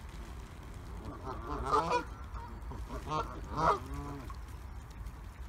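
Geese honking: a run of calls about a second and a half in, then a few more around three and a half seconds, the loudest near the end of that second group.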